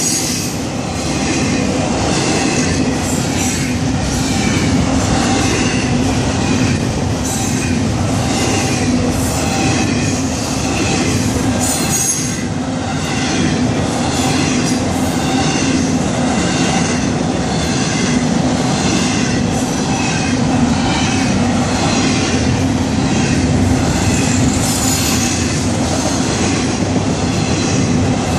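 Florida East Coast Railway freight cars rolling steadily past at close range, with the rumble of wheels on rail and squealing wheels. Over it, the grade crossing's Safetran and Western-Cullen bells ring in a regular beat.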